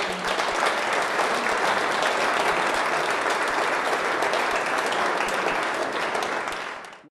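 Audience applauding, a dense patter of many hands clapping that thins near the end and then cuts off.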